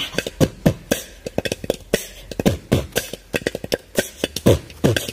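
A two-headed hand drum played in a quick, steady rhythm: sharp slaps mixed with deep strokes whose pitch slides down after each hit.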